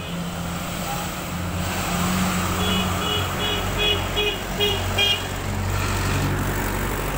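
Mahindra Novo 605 DI tractor's diesel engine running steadily as the tractor drives along a road. About a third of the way in, a horn or beeper sounds a quick run of short beeps, about three a second, for a couple of seconds.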